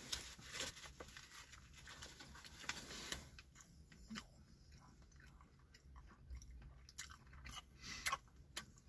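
A man biting into and chewing a chicken sandwich, faint crunching and clicking of the chewing, most of it in the first three seconds and a few more near the end.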